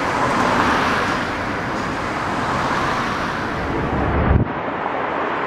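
Road traffic going by on a city street: a steady traffic hum with a vehicle passing early on and a low rumble near four seconds. The hiss drops away abruptly about four and a half seconds in.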